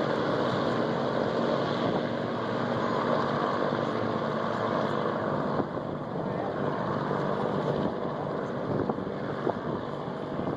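Engines and propellers of large RC scale warbird models running on the flight line for takeoff: a steady droning engine noise that eases off a little about halfway through.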